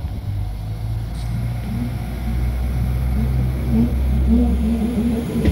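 Northern Class 195 diesel multiple unit moving along the platform, its underfloor diesel engine giving a steady low drone. From about two seconds in, a pulsing engine tone joins it and the sound grows louder as the unit passes.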